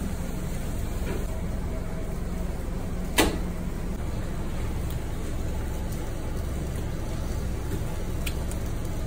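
Steady low hum of commercial kitchen equipment, with one sharp knock about three seconds in and a few faint ticks near the end.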